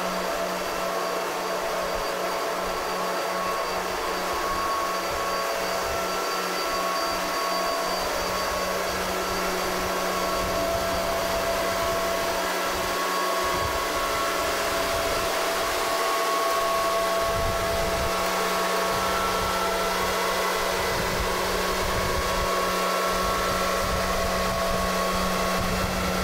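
Giant rubber-tyred girder transporter running while it carries a precast concrete box girder: a steady machine drone and whirr with a constant hum, the low rumble growing heavier about two-thirds of the way through.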